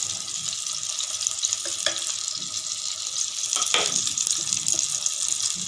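Chicken burger patties sizzling steadily as they shallow-fry in oil on a low flame, a continuous bubbling hiss. A wooden spatula scrapes or knocks against the pan twice, briefly.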